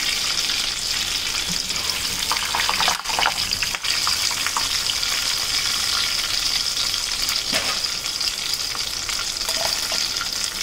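Samosas deep-frying in hot oil in a kadhai, a steady sizzle. A slotted steel spoon scrapes and clinks lightly against the pan as the fully browned samosas are lifted out of the oil.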